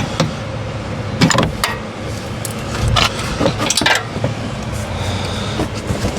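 Irregular metallic clicks and clinks of a wrench working a nut and washer onto a sway bar link bracket bolt, with a steady low hum underneath.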